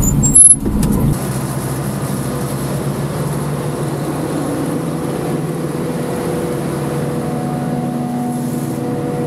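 A John Deere 6600 tractor and a Claas self-propelled forage harvester running together while picking up silage grass, a steady engine drone with a constant hum above it. A brief loud knock comes about half a second in.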